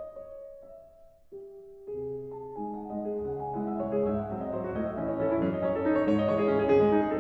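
Background piano music: a few slow single notes, then, from about two seconds in, fuller chords over a bass line, growing louder.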